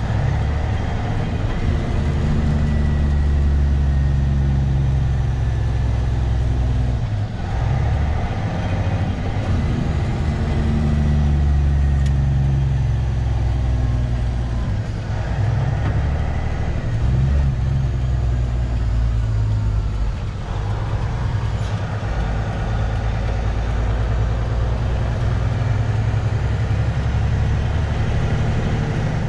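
Semi truck's diesel engine running on the road, a steady low drone whose pitch drops and climbs again several times.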